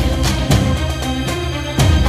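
Music with a beat: sustained instruments and sharp drum strikes, one near the start, another about half a second in and a heavy one near the end.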